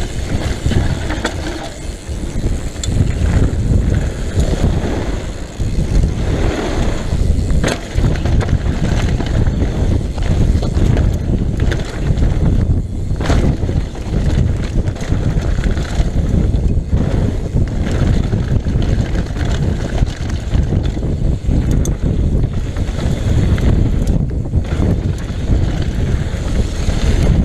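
Mountain bike descending a rocky dirt and gravel trail: wind buffeting the rider's camera microphone, tyres rumbling and crunching over the ground, and the bike rattling with sharp knocks over bumps.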